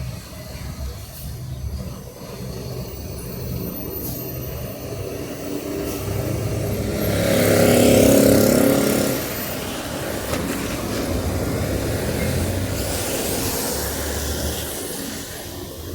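Street traffic: a motor vehicle passes close by, its engine and tyre noise swelling to a peak about halfway through and then easing off. Further traffic keeps up a lower steady rumble.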